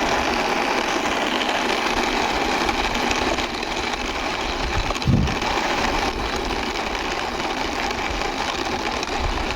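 Wheels of a plastic toy bus rolling along a surface as it is pushed by hand, a steady whirring noise. A short low thump about halfway through.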